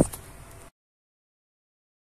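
The tail of a man's voice, then faint room tone that cuts off suddenly under a second in to dead digital silence as the audio track ends.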